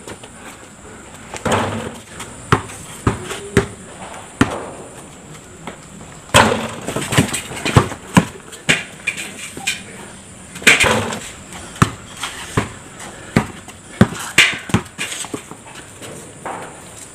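Basketball bouncing on a concrete driveway in play: an irregular run of sharp dribble thuds. A few longer, louder scuffs of shoes on the concrete come in among them.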